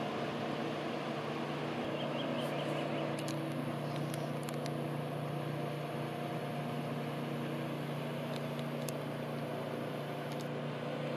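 Distant motorboat engine running steadily at speed, a level drone with a constant pitch, heard from high above the water.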